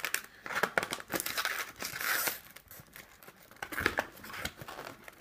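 Foil trading-card booster packs crinkling and rustling as they are handled in their display box, with irregular crackles and small clicks.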